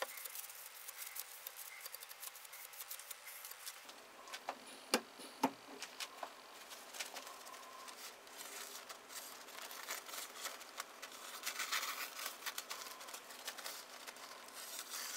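Paper towel rustling and rubbing against a kitchen knife's blade as it is wiped clean in a sharpening jig, with scattered small clicks of handling. Two sharper clicks come about five seconds in, and the rustling grows denser near the end.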